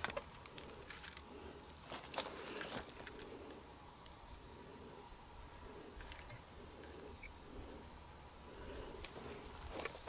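Insects calling: a steady high-pitched hum, with short groups of quick chirps every couple of seconds. A few footsteps crunch on dry leaf litter in the first three seconds.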